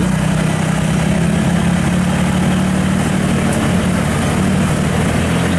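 Tracked rice combine harvester's diesel engine running steadily as the machine crawls across a steel-ladder ramp laid over a ditch.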